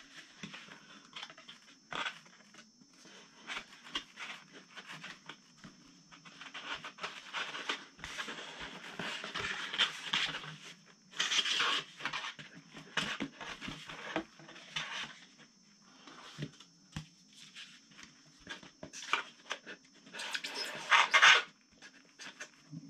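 Hand-handling noises of a model airplane's horizontal stabilizer being slid and worked back and forth through its slot in the fuselage: irregular rubbing and scraping with light taps and clicks, with a louder scraping stretch about two-thirds of the way through.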